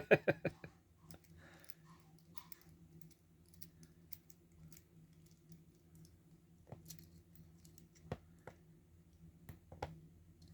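Scattered small clicks and taps of lock tools and padlock parts being handled and set down on a work surface, a few sharper knocks near the end, over a faint steady hum.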